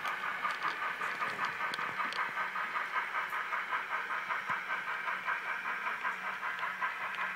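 HO-scale model passenger train running around the layout: a steady rhythmic hissing pulse, about five or six beats a second, with a few light clicks.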